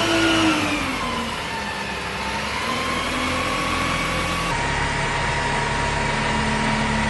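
Water tanker truck's diesel engine running, its note falling over the first two seconds and then holding steady, with a low throb coming in about halfway. An even hiss of spray from the roof water cannon runs under it.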